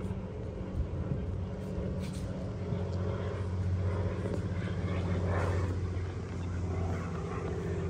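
An engine's steady low drone, swelling slightly in the middle and easing off again.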